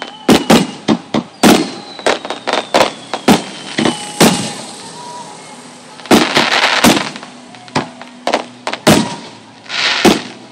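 Aerial fireworks bursting in rapid succession: sharp bangs one after another, with thicker crackling around the middle and again near the end, and thin whistles slowly falling in pitch early on.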